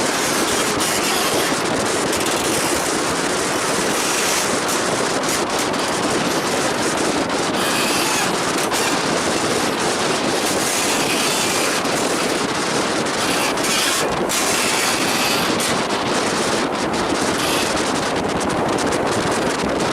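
Steady loud rush of gale-force wind, gusting over 40 mph, with choppy tossing waves, broken by scattered short crackles.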